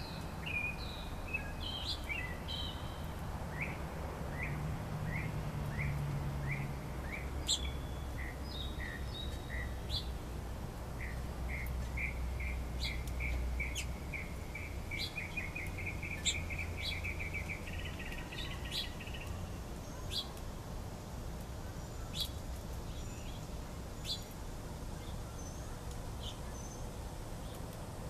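Songbirds calling: a series of short repeated notes that speeds up into a rapid trill ending around two-thirds of the way through, with sharp higher chirps scattered throughout. A low steady rumble runs underneath.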